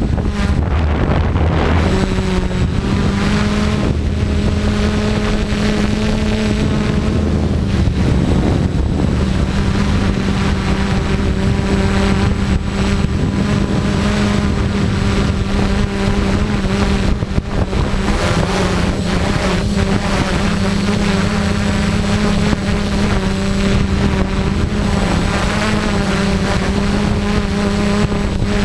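FPV drone's motors and propellers humming steadily in flight, the pitch stepping slightly up and down, with wind buffeting the GoPro's microphone.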